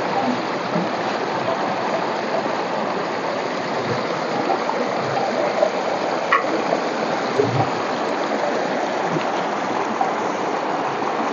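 Shallow mountain stream running fast over rocks and gravel: a steady, even rush of water.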